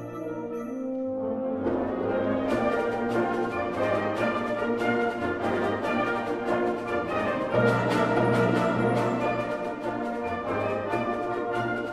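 A symphonic wind band playing, brass to the fore. A softer passage of held notes swells into the full band about two seconds in, with sharp accented strokes, and it is loudest near eight seconds.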